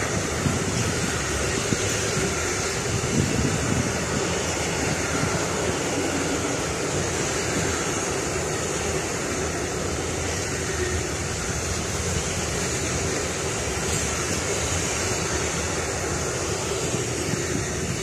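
Container wagons of a freight train rolling past on the rails, a steady, even noise of wheels on track that ends near the end as the last wagon goes by.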